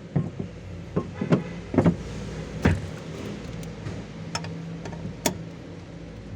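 Metal tools knocking and clicking against metal parts as a car's fuel pump is worked loose, with about seven sharp knocks at uneven intervals. A steady low hum runs underneath.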